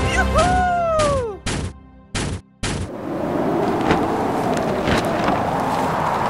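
Gunshot sound effects: a falling whistle-like tone, then a quick series of sharp bangs with short silences between them. About three seconds in, a steady rushing noise with a faint wavering hum takes over.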